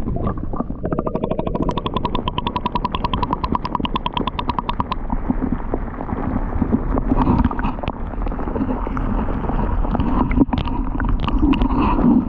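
Muffled underwater rumble and sloshing of canal water heard through a camera held below the surface, with a rapid run of fast ticks for a few seconds near the start.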